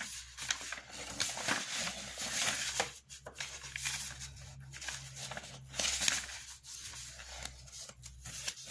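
Pen scratching on paper in irregular strokes as notes are written by hand, over a low steady hum.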